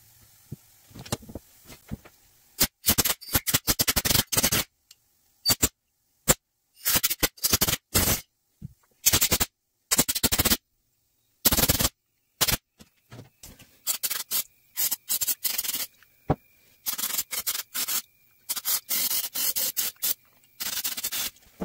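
Repeated short, loud hissing blasts from a compressed-air blow gun and an aerosol can of carburetor cleaner, blown and sprayed through a small-engine carburetor's holes and passageways to clear out debris.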